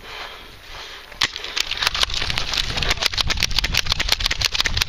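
Automatic airsoft gun firing a long rapid burst of sharp clicks, about eight shots a second, after a single shot about a second in.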